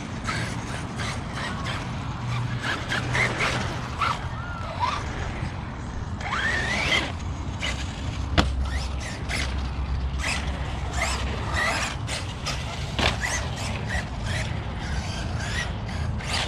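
Electric 1/8-scale ARRMA Notorious RC car being driven: short squeals and chirps with scattered clicks and knocks, and one sharp knock about eight seconds in.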